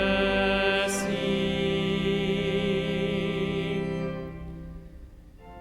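Sung responsorial psalm refrain at Mass, ending "...in his mercy": voices with vibrato hold the final notes, then die away near the end.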